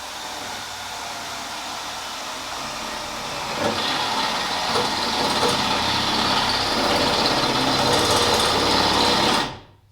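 Power drill boring a hole through a steel frame rail, running steadily and growing louder about three and a half seconds in as it bites, then stopping near the end.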